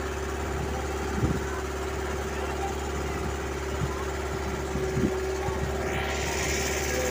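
Boat engine running steadily underway, a constant mechanical drone with a few light knocks. About six seconds in, a hiss comes up over it.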